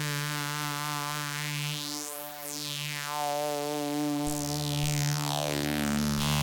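Arturia MiniFreak six-voice polysynth playing a sustained pad preset: a held low note with wavering overtones. A high whooshing sweep rises and falls back about two seconds in. Near the end another sweep falls from high, and a deep bass note comes in about four seconds in.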